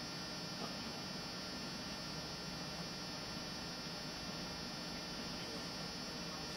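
Steady electrical mains hum with a faint buzz that holds at one level throughout.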